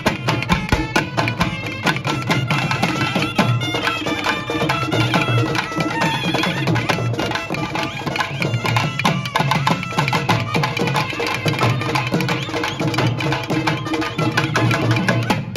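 Thavil drums beating a dense, steady rhythm under trumpets playing the melody together: a Tamil mangala vathiyam ensemble.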